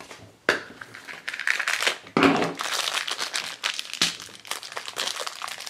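Hard plastic Minions Mineez Fart Blaster capsule being twisted and pried open by hand, with irregular crinkling of plastic packaging and sharp plastic clicks.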